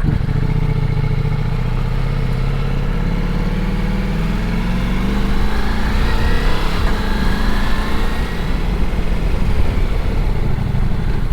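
Ducati Multistrada V4S's V4 engine running at low revs, its pitch rising slowly about halfway through.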